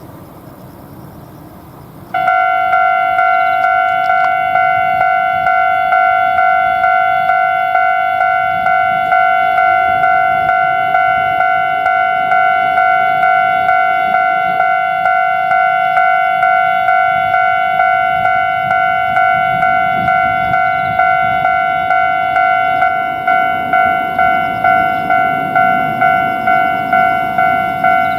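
Japanese level-crossing warning bell switching on about two seconds in: an electronic 'kan-kan' ding repeating about twice a second, the strokes standing apart more sharply near the end.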